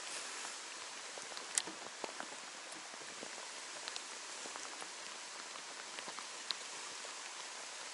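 Steady rain falling, with scattered sharper drop ticks, one louder about a second and a half in.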